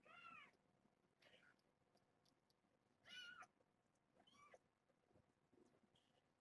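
Kittens about three and a half weeks old mewing faintly: four short, high mews, the loudest about three seconds in.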